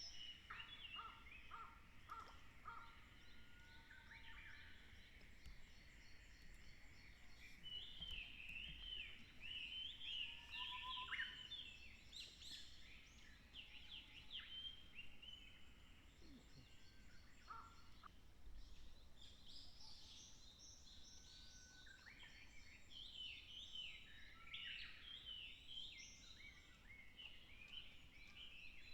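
Faint songbird singing: a few short notes at the start, then two long bursts of quick, varied chirping and warbling phrases, the first about eight seconds in and the second about twenty seconds in.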